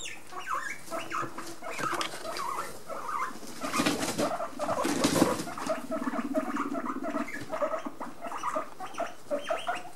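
Guinea pigs making many short, repeated squeaks and chirps. A low buzzing sound lasts a couple of seconds about halfway through, with a brief rustle around the middle.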